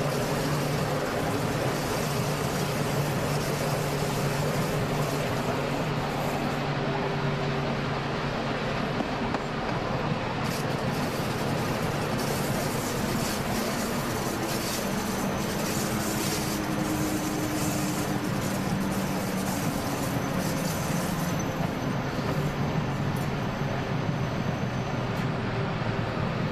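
Electric train running along the track: a steady rumble of wheels on rails, with a low hum that shifts in pitch partway through.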